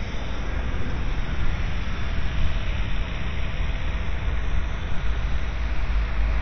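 Steady low road rumble and wind noise of a moving vehicle, heard from inside it.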